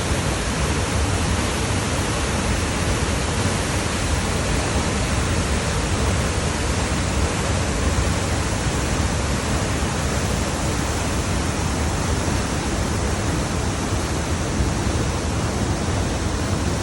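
Waterfall pouring: a steady, unbroken rush of falling water, deepest in the low end.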